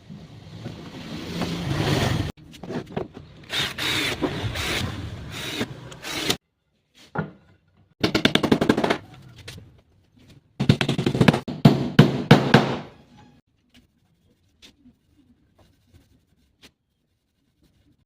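Tools working wood in several bursts that start and stop abruptly. A rasping stretch for the first six seconds is followed by two shorter bursts of fast rattling, about two seconds in and then about halfway through, with a few faint ticks after them.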